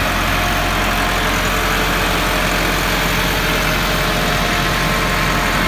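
Massey Ferguson 385 tractor's four-cylinder diesel engine running steadily as it pulls a potato digger through the field.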